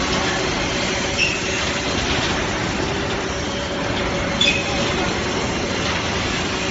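Steady drone of running machinery on a steel-fabrication shop floor, with short high metallic squeaks about a second in and again past four seconds.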